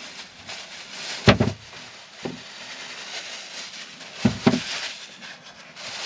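A plastic produce bag rustles as broccoli is handled, with two sharp knocks, about a second in and again after four seconds, and a couple of fainter ones.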